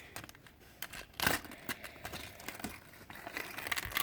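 Packaging crinkling and tearing as a small value pack of toy brick weapon pieces is opened, with scattered light clicks. There is a louder rustle about a second in.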